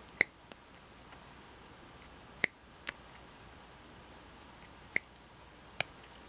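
The cutter jaws of post-war German-made Steelcraft pliers snipping through insulated stranded copper wire: four sharp snips, the last two close together, with a few fainter clicks between.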